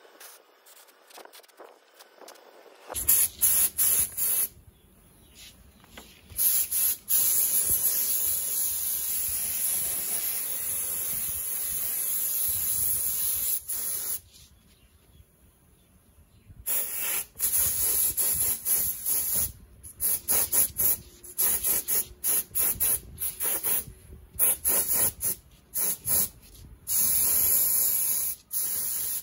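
Compressed-air gravity-feed spray gun hissing as it sprays basecoat paint: it starts about three seconds in with a few short pulls, then sprays in a long steady pass, stops for about two seconds midway, and finishes with a quick run of short trigger bursts.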